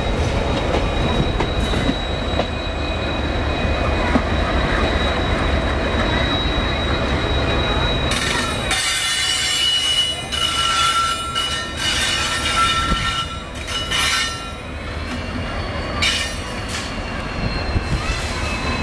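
Train wheels rolling on rail, with a dense low rumble and thin high-pitched wheel squeal. About halfway through the rumble drops away and several on-and-off squeal tones carry on.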